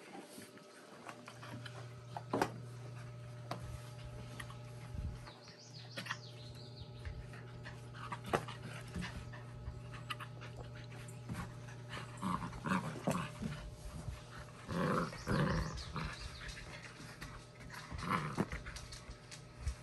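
A Labrador puppy and an adult Labrador playing tug of war with a plush toy: panting and low play growls, with several louder growling bursts in the second half. A steady low hum and scattered clicks run underneath.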